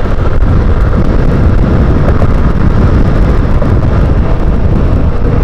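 Wind rumbling on the microphone over a Honda motorcycle's engine running steadily at a cruise of about 78 km/h. The sound is loud and even, with no change.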